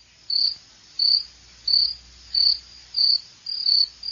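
Cricket chirping in a steady rhythm: short high-pitched chirps about one and a half times a second.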